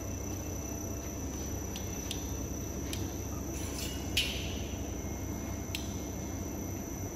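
Hollow pipe welding machine's roller drive running: a steady low hum with a steady high-pitched whine over it, a few faint clicks, and one sharper click about four seconds in.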